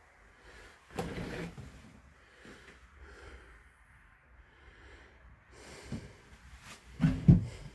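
Quiet room with a soft low thump about a second in and a louder short breath-like sound near the end.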